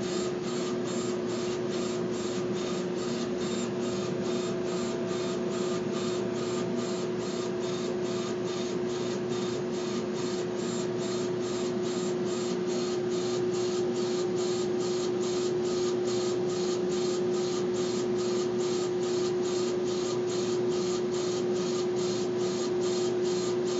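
Laser engraver running as it engraves a wooden drumstick on a rotary attachment: a steady machine hum with one constant tone, under a hiss that pulses evenly about two and a half times a second.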